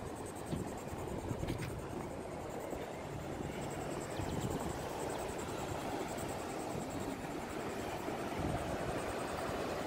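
Sea breeze blowing across the phone's microphone: a steady low rushing noise.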